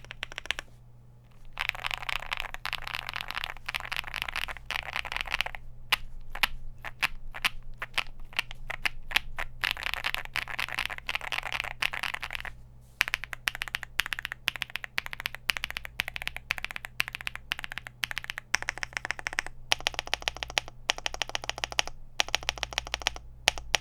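Typing on a Leobog Hi75 gasket-mounted aluminum mechanical keyboard with factory-lubed Gateron Quinn tactile switches, a polycarbonate plate, foam and tape mod, and PBT keycaps. It is a dense run of keystrokes with a short pause about a second in, and stretches of very fast typing in between slower bursts.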